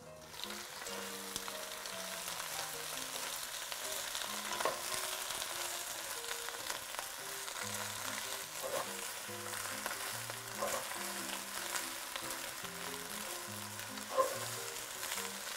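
Napa cabbage and Chinese celery sizzling in hot oil in a nonstick wok, stir-fried with a wooden spatula. The sizzle starts suddenly as the lid comes off, and a few louder scrapes of the spatula stand out.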